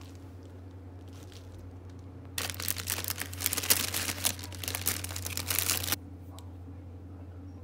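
Packaging crinkling and rustling as a plastic-wrapped package is pulled out of a crinkled paper mailer: loud dense crackling that starts about two and a half seconds in and stops sharply about six seconds in, over a steady low hum.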